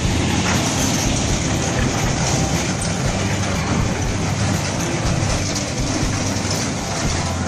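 Children's amusement-park ride train rolling past on its small ground-level track, its wheels making a steady, continuous rolling noise on the rails.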